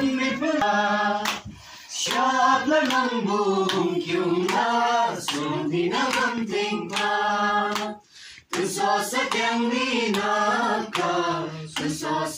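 A group of voices singing together, with handclaps, the singing breaking off briefly between phrases about a second and a half in and again about eight seconds in.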